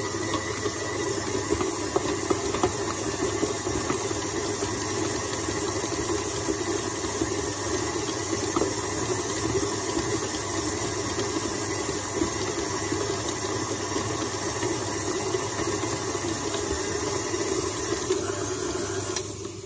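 Electric stand mixer running steadily at a raised speed, its flat beater turning through stiff cookie dough in a stainless steel bowl to bind the ingredients; it is switched off right at the end.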